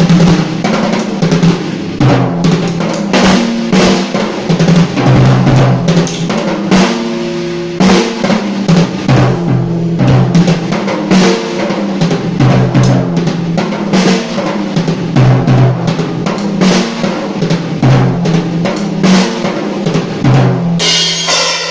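A Tama Stagestar acoustic drum kit played continuously: rapid snare, tom and bass drum strokes with rolls. Near the end a cymbal is crashed and rings on.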